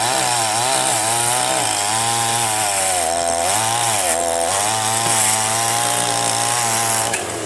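Two-stroke chainsaw cutting into a log at high revs. The engine note dips and recovers several times as the chain bites, then drops away near the end.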